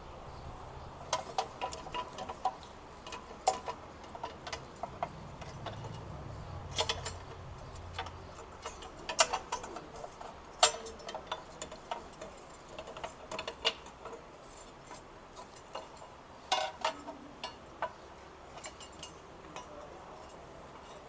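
Scattered metal clinks and taps as metal parts and hand tools are handled while oil cooler line fittings are set in place, some clicks with a short ring.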